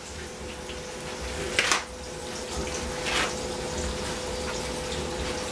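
Steady hissing of food frying in hot oil on the stove, under a faint steady hum, with two brief knocks of cookware about two and three seconds in.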